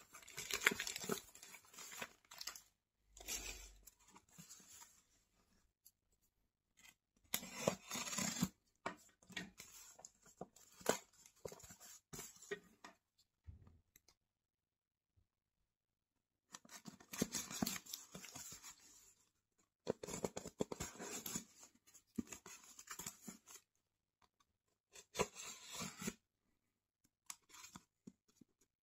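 Plastic courier mailer bag crinkling and tearing open, then a utility knife slicing into the tape and cardboard of a box. The sounds come in scratchy runs of a few seconds, with short pauses and a longer quiet gap midway.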